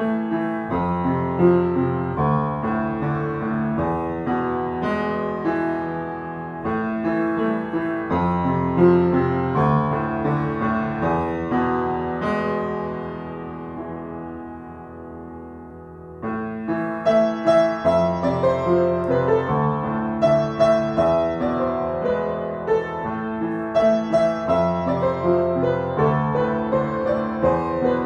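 Piano music, a melodic instrumental piece of many single struck notes. The playing dies down about halfway through, then a brighter phrase with higher notes begins around sixteen seconds in.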